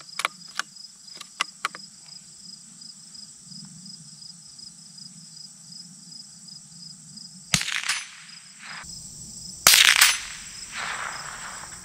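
A suppressed .22 LR bolt-action rifle fires once, sharply, about seven and a half seconds in, after a few light clicks early on. About two seconds later comes the loudest sound: a sharp hit with a short ringing tail as the bullet strikes a hanging steel plate at 100 yards. A steady chorus of crickets and insects runs underneath throughout.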